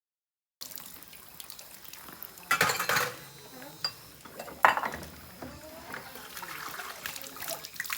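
Dishes being washed by hand: water running with bowls and utensils clinking, and two loud clatters about two and a half and four and a half seconds in. It opens with about half a second of dead silence.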